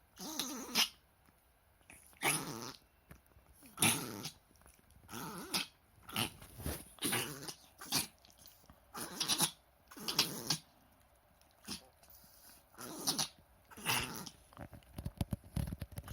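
Chihuahua reverse sneezing: a run of sharp, noisy inhalations through the nose, about one a second. The episode is reverse sneezing and not tracheal collapse, since X-rays found the trachea, lungs and heart sound.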